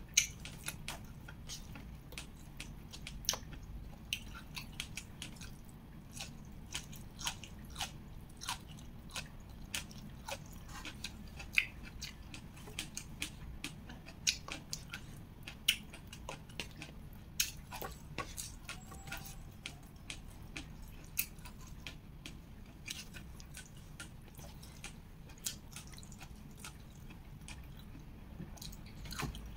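A person chewing and biting food close to the microphone: frequent irregular sharp clicks and wet mouth smacks, over a low steady hum.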